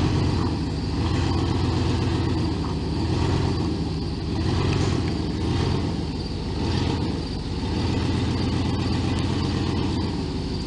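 A vehicle engine running under throttle, its revs rising and easing in several swells. There is a sharp knock right at the start.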